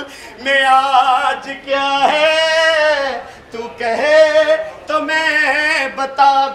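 A man singing a song with long held notes, little instrumental backing.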